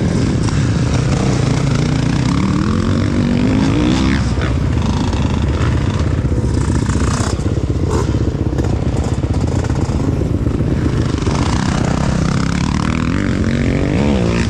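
Motocross dirt bike engine running close by, its pitch rising and falling as it is revved, with more dirt bikes running on the track.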